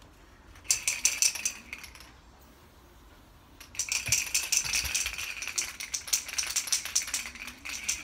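An aerosol can of temporary colour hairspray being shaken, its mixing ball rattling fast inside the can, in two bursts: a short one about a second in and a longer one from about four seconds on.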